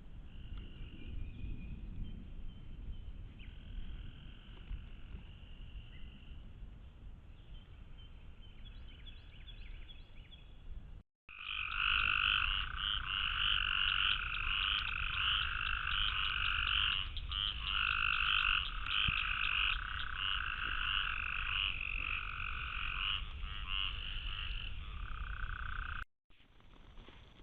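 A chorus of frogs calling steadily in overlapping trills, fainter for the first ten seconds or so and much louder after an abrupt break, over a low rumble.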